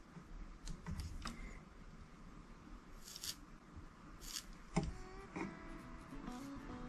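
Quiet handling sounds from soldering a wire onto a microphone plug pin: a few faint clicks and short soft hisses. About five seconds in, faint background music with a simple melody comes in.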